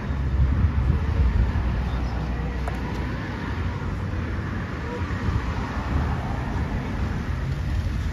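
Strong wind buffeting a phone microphone, a loud unsteady low rumble, over a hiss of wind through tall grasses and trees.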